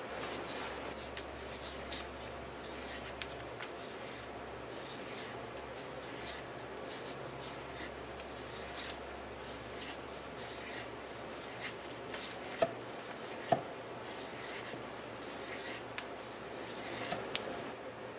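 Ka-Bar kukri machete blade shaving a wooden stick into a feather stick: repeated short scraping strokes of steel on wood, with two sharp clicks about two-thirds of the way through.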